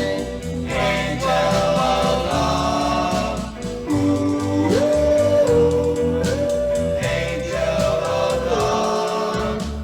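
1960 vocal-group record playing: held, wordless group vocal harmony over instrumental backing, between sung verses.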